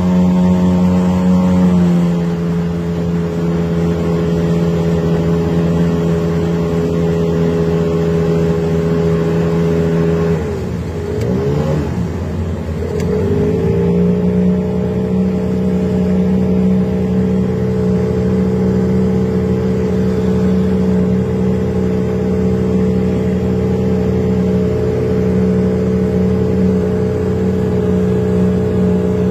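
Boat engine running steadily under way, with a slight drop in pitch about two seconds in. About ten seconds in, the pitch sags and then swoops back up to a steady note again.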